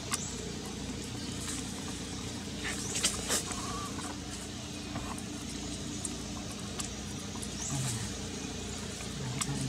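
Steady outdoor background noise with a few light clicks about three seconds in and a few faint short, low animal calls near the end.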